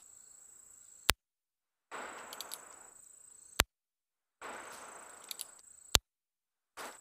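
Three single shots from a .22 LR handgun, each a sharp crack, about two and a half seconds apart, fired at a target. A steady high insect drone runs underneath.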